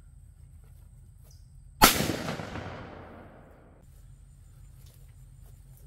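A single 12-gauge shotgun shot from a Franchi Affinity 3 inertia-driven semi-automatic, about two seconds in. Its report echoes and fades away over about two seconds.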